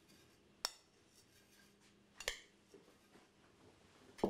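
A metal spoon clinking against ceramic dishware while a salt and sugar cure is spooned into a baking dish: three sharp clinks, a little after the start, a little past two seconds, and near the end.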